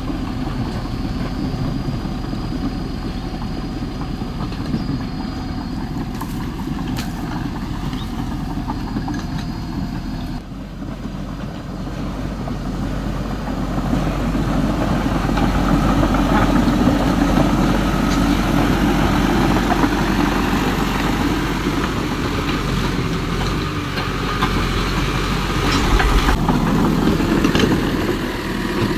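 A vehicle engine running steadily, getting louder about halfway through.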